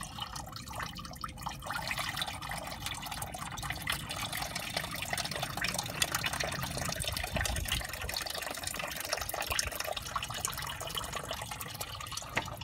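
Old engine coolant trickling and dripping from a car radiator's plastic drain valve into a drain pan, a steady patter of small splashes as the radiator drains down to a drip. A sharp click near the end.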